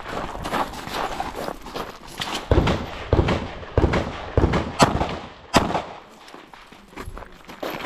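Handgun shots fired in a quick, uneven string of about seven, starting about two and a half seconds in, with footsteps crunching on gravel before them.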